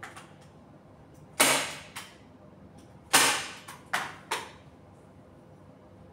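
Hand staple gun fired five times, fixing the new fabric cover to the bed base: two loud snaps about two seconds apart, with lighter shots after each.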